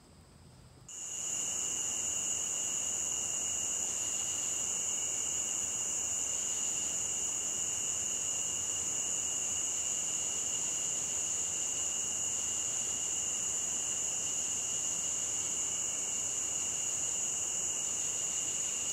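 Steady chorus of night insects such as crickets, trilling continuously at two high pitches, starting about a second in.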